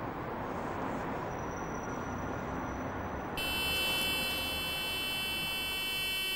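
Steady background noise, then about three seconds in a continuous electronic buzz starts suddenly and holds steady: the warning tone of a police interview tape recorder as recording begins.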